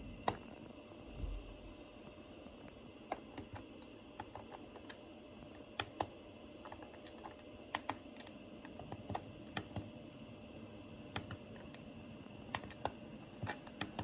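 Push buttons on a Daikin wired air-conditioner remote controller clicking as they are pressed, a string of short irregular clicks, some in quick pairs. There is a low bump about a second in.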